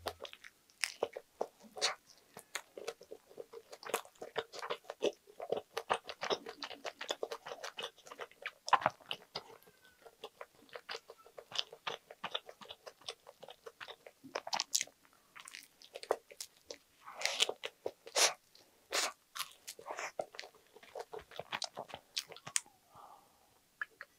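A person biting and chewing a butter-toasted bread sandwich filled with lettuce, Spam and egg: crisp crunches of toast crust and lettuce come in irregular runs of wet chewing, louder in a few spells past the middle.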